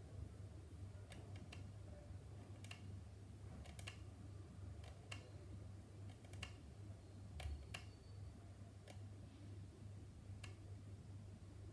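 Light, irregular clicks and taps from hand work on a plastic model car body, roughly one a second, over a low steady hum.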